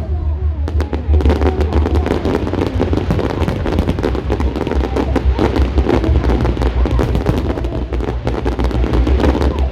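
Fireworks going off in a dense, rapid string of sharp cracks and pops, starting about a second in and running almost to the end, over a steady low rumble.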